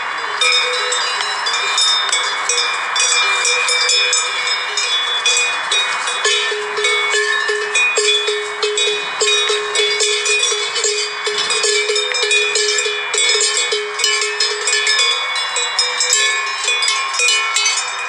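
Many bells clanking and ringing without a break on a flock of sheep milling and grazing, with dense irregular clinks over overlapping ringing tones.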